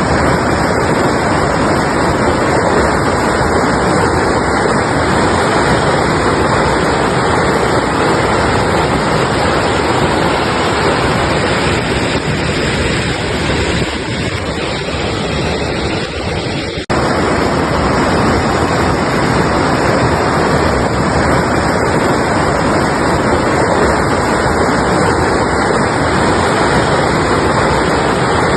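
Mountain river rushing steadily, a continuous loud rush of water. The sound dips and drops out for an instant just past halfway, then carries on as before.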